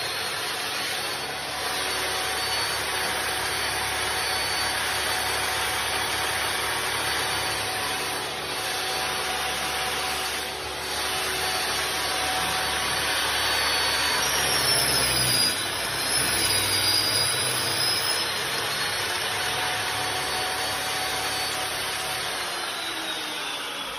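Table saw with a circular blade running and cutting through polyurethane faux-stone panels: a steady motor and blade whine with cutting noise. The pitch wavers partway through and falls near the end.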